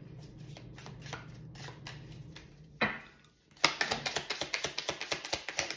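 Tarot cards being shuffled by hand: a single card snap, then a quick, dense run of card flicks through the second half.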